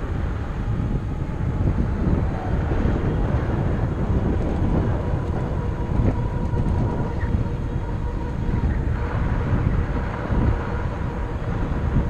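Wind buffeting the microphone and fat tyres rumbling over a sandy dirt road as a RadMini electric bike rides along, with a faint steady whine underneath.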